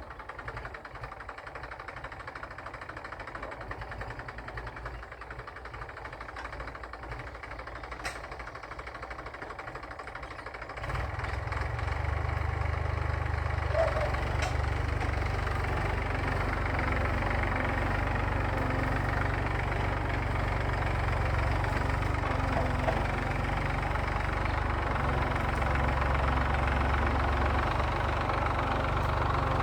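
Massey Ferguson tractor's diesel engine running steadily, getting clearly louder and heavier about eleven seconds in, then holding.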